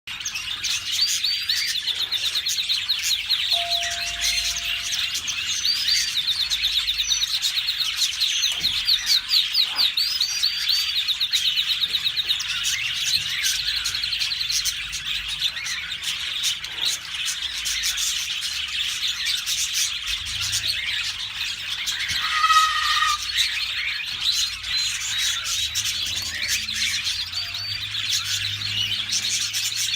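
Yellow canary singing a long, unbroken song of fast trills and rolling phrases, with a short falling run of notes about two-thirds of the way through.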